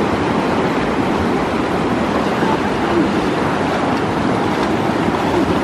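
A fast-flowing stream running high after rain: a steady, loud rush of water.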